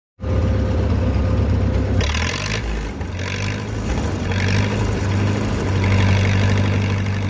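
An engine running steadily, a low hum with hiss over it, starting abruptly at the opening.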